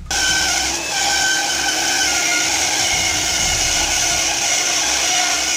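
Floor-standing bandsaw resawing a board on edge against the fence: the blade cutting through the wood in one continuous pass, a steady hissing whine with a brief dip about a second in.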